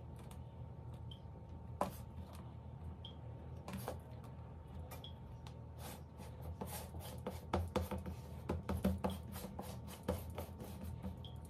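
Hands pressing and pinching tart-shell dough into a fluted metal tart tin on a countertop: soft rubbing with many light taps and clicks, busiest in the second half, over a steady low hum.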